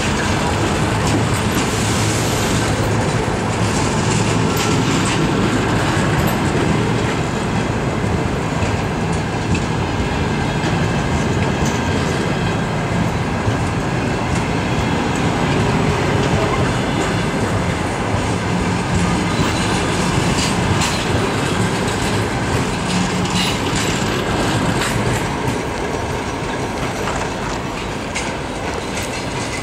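Passenger coaches of a departing train rolling past, steel wheels clicking over the rail joints. The noise grows fainter near the end as the last coaches move away.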